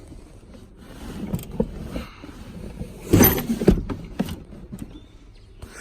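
Plastic clunks, knocks and rustling from a wiring harness being pulled and worked in a pickup's center console, with the loudest knocks a little past halfway.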